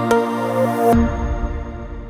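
Electronic outro music: a run of bright plucked notes over a steady bass tone, which about a second in breaks off into a deep low rumble that fades away.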